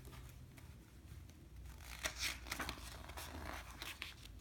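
Paper pages of a children's picture book being turned and handled: faint rustling with a few soft flicks, mostly in the second half.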